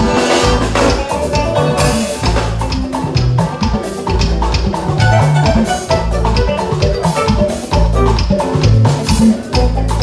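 Live band playing an upbeat groove at a sound check: keyboards, electric guitar and drum kit over a deep bass line, with drum hits keeping a steady beat.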